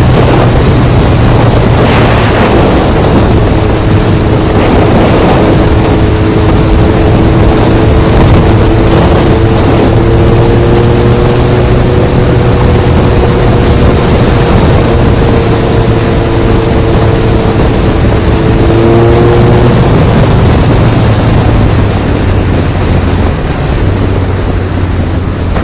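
Motorcycle engine running at a steady cruise, heavily overlaid by wind rushing over the microphone; its note eases off about three quarters of the way through.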